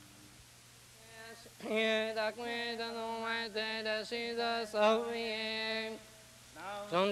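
A Zoroastrian priest's male voice chanting Avestan liturgical recitation in long, steady held notes. It begins after a second or so of quiet, breaks off briefly near the end, then resumes.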